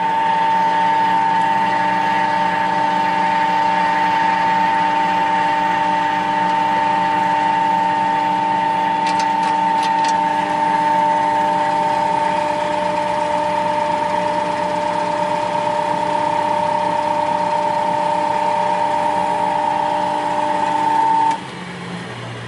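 SAFO DZJB 250 long belt sander running after start-up: a steady motor whine that cuts off suddenly about a second before the end.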